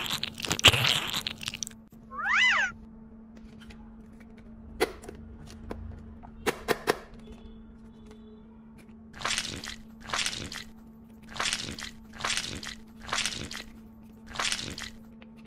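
Hands squeeze soft Play-Doh balls with loud squishing. About two seconds in comes a short high whine that rises and falls, then a few sharp clicks from the plastic mold. Near the end, about seven squishes roughly a second apart as dough is pressed into the pink plastic ice-cream-pop mold, over a faint steady hum.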